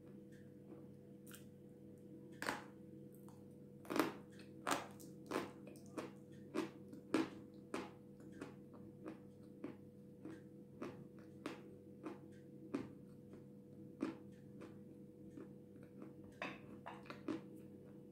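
Close-up crunchy chewing of a dry, powdery white lump of Jasmin edible mineral: a run of short crunches, roughly one or two a second, the loudest a few seconds in. A steady low hum sits underneath.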